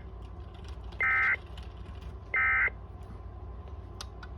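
Emergency Alert System end-of-message data bursts: two short, loud buzzing digital tones about a second and a half apart, over a steady low hum.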